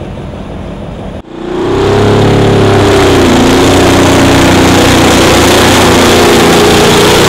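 Diesel engine of a semi-truck tractor unit pulling a weighted sled, running loud and steady under heavy load, its pitch wavering slightly. It cuts in abruptly about a second in.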